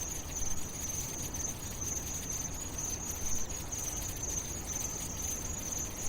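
A steady, high-pitched insect chirring over a low rumble, like a cricket chorus at night.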